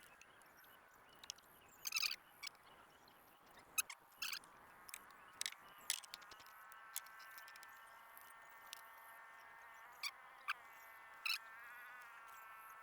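A steady, high-pitched chorus of calling animals that grows louder about halfway through, with scattered short sharp clicks.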